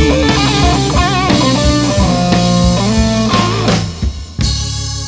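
Blues band playing: a guitar lead with wavering, bent notes over drums and bass. About four seconds in the band briefly drops out, then a chord comes back in.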